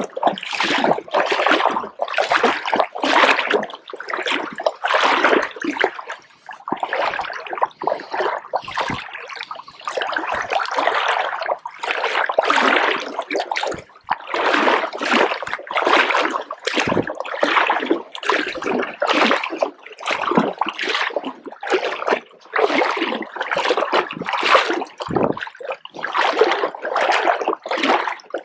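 River water splashing and sloshing in quick, irregular bursts, about one or two a second.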